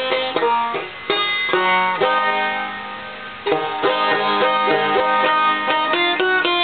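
Five-string banjo played clawhammer style, a quick run of plucked notes and brushed strums. A little past the middle a chord is left to ring and fade for about a second and a half before the picking starts again.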